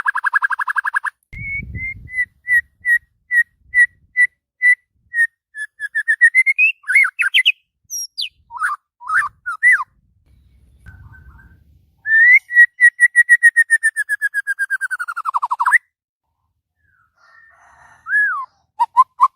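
White-rumped shama (murai batu) singing loudly in varied phrases: a fast rolling trill, a string of clear whistled notes about two a second, quick sharp chattering calls, then after a pause a long rapid run of repeated notes that drops in pitch at its end, and a new fast trill near the end.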